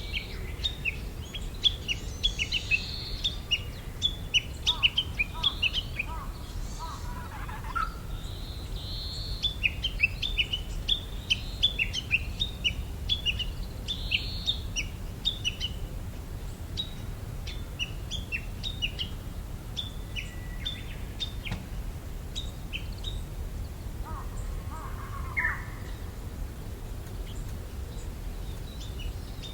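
Songbird singing: quick runs of high chirping notes, dense for the first half and thinning out later, with two brief lower warbled phrases. The bird has been taken for a Japanese bush warbler, though it may be a mimicking hwamei.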